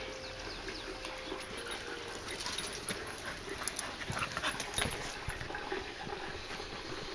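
A dog whining and yipping briefly a few times, over a steady background hiss.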